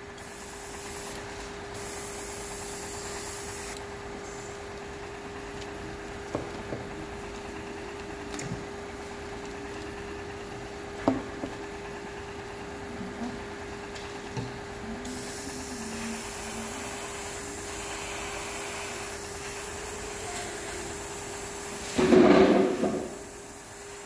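Airbrush spraying paint in two hissing passes, a short one at the start and a longer one past the middle, over a steady low hum. A few light knocks come between the passes, and a short louder noise comes near the end.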